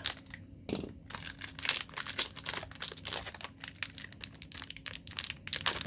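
A Magic: The Gathering booster pack's foil wrapper being crinkled and torn open by hand: a dense, irregular run of crackles and rips. The pack is hard to get open.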